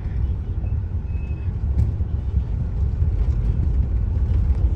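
Vehicle travelling along a road: a steady low rumble of engine and road noise.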